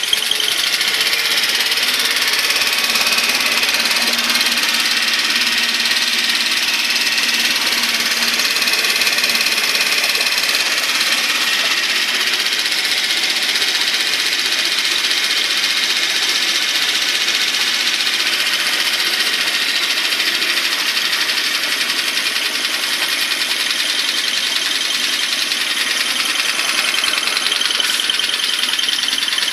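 Tohatsu 5 hp four-stroke single-cylinder outboard motor running steadily at an even speed, with no revving.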